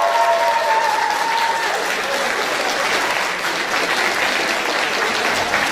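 Audience applauding, a steady dense clapping, with the last held sung note of the song fading out under it in the first couple of seconds.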